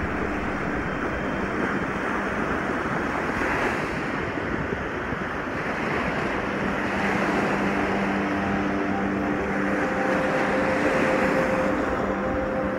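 Small ocean waves breaking and washing up over wet sand, a steady rush of surf that swells about every four seconds as each wave comes in.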